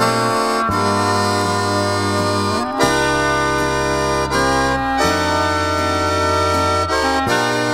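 Instrumental slow waltz played by an Alpine folk quintet, with accordion to the fore over held chords and a bass line that changes note every couple of seconds.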